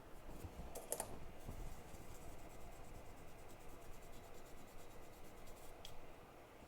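Faint scratching with a few light clicks as a hand tool works over a small circuit-board chip.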